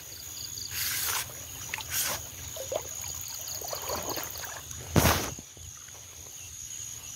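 Crickets chirping in steady pulses over a constant high insect trill, with short bursts of rustling and splashing as a snake is wrestled out of a bush on the end of metal snake tongs. The loudest is a sharp swish about five seconds in.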